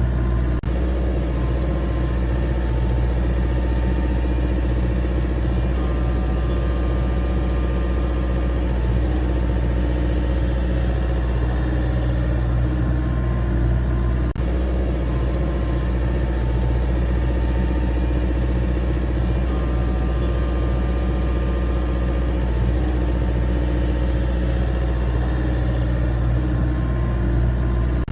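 An engine idling steadily, with two brief breaks: one about half a second in and one around fourteen seconds.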